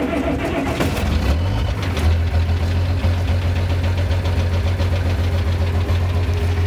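International 1256 tractor's diesel engine just started from cold and idling to warm up, heard from inside the cab. A low, steady engine rumble settles in and firms up about two seconds in, then holds evenly.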